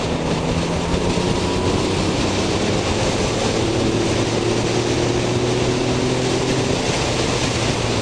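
Yamaha XSR900's three-cylinder engine running at a steady pitch while the motorcycle is ridden, under loud, even wind rush on the microphone.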